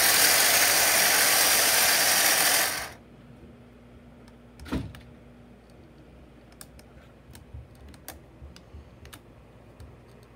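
Small electric motor and plastic gear train of a Capsela construction toy running with a loud, steady whir, cutting off suddenly about three seconds in. A single thump follows, then scattered light clicks.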